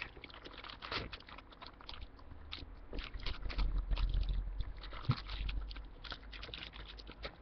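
Tin foil wrapper of a chocolate bar crinkling and crackling in irregular bursts as it is being unwrapped by hand. A low rumble rises in the middle.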